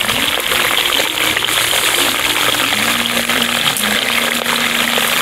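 Meat sizzling steadily in a hot frying pan over a campfire, frying on its bottom layer of oil-coated stones, with fine crackling through the hiss.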